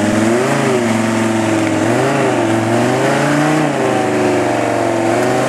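Off-road 4x4's engine running under load, its revs rising and falling a few times.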